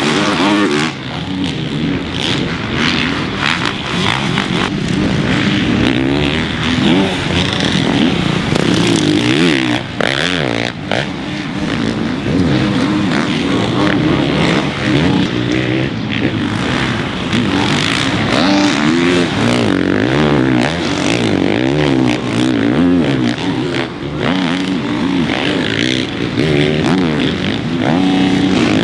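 Supercross dirt bikes' four-stroke single-cylinder engines revving up and down continuously, the pitch rising and falling over and over as riders get on and off the throttle, with several bikes overlapping.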